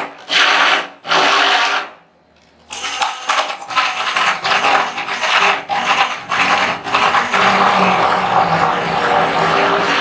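Hand-held electric stick blender running in a tall plastic cup, mixing a powder batch. It is switched off and on in short pulses over the first two seconds, stops for most of a second, then runs again with quick dips until about seven seconds in and steadily after that.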